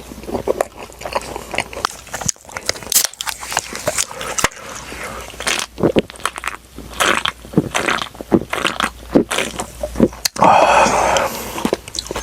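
Close-miked eating: a person biting and chewing crunchy fast food, with irregular crisp crunches and mouth sounds, and a louder, longer crunch about ten seconds in.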